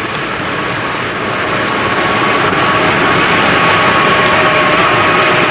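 MAN web offset rotary printing press running: a loud steady mechanical din with a faint steady whine, growing louder about two seconds in.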